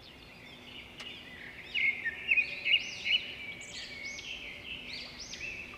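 Birds chirping: many short, overlapping calls that grow louder about two seconds in.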